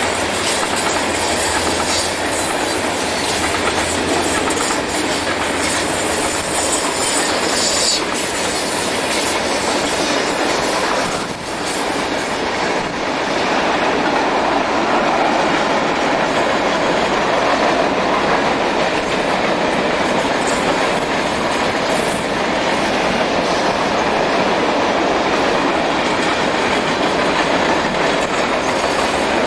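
Union Pacific freight train's covered grain hopper cars rolling past, a steady noise of steel wheels running on the rails, with a brief drop in level about eleven seconds in.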